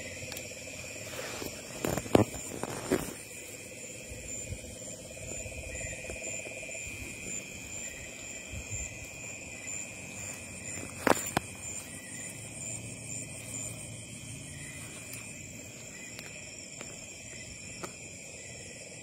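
A night chorus of crickets and other insects: several steady high trills, one of them pulsing and fading out a little past the middle. A few short sharp clicks or knocks cut across it, the loudest about eleven seconds in.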